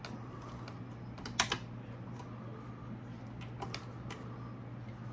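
Scattered clicks and knocks of a Singer 431G sewing machine's stitch-selector dials and levers being turned by hand, with a sharper knock about a second and a half in. A steady low hum runs underneath.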